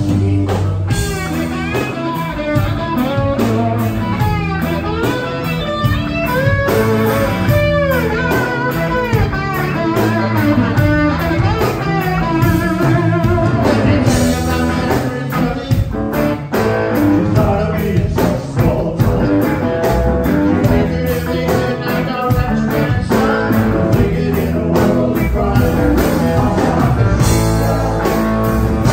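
Live rock band playing at full volume: electric guitars, bass guitar and drum kit, with a lead line that bends and slides in pitch during the first several seconds.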